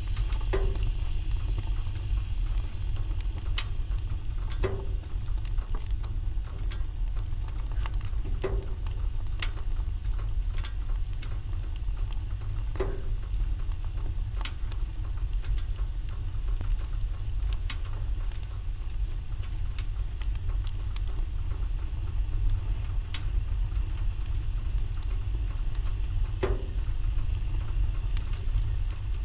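Wood fire in a fireplace crackling, with scattered small clicks and a handful of louder pops: about every four seconds in the first half, then once more near the end. A steady low rumble runs beneath.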